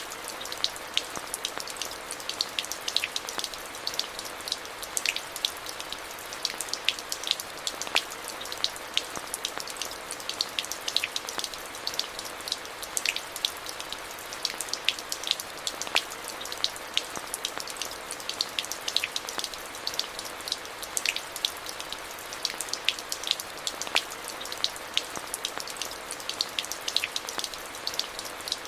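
Steady rain with many distinct, close drop strikes ticking over a constant hiss of rainfall.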